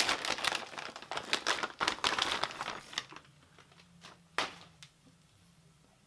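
Plastic packaging bag crinkling and rustling for about three seconds while a new oil pickup tube is unwrapped, then a single sharp knock a little over four seconds in.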